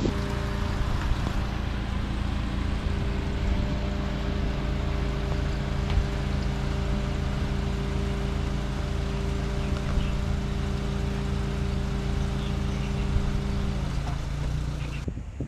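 Engine of a CMC Veryca light van running steadily while driving, with a steady low hum. Near the end the engine note drops, then the sound cuts off abruptly.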